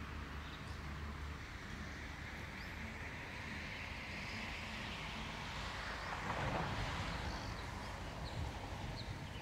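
Outdoor background noise: a steady hiss with low rumble that swells and fades again about six to seven seconds in, with a few faint short chirps.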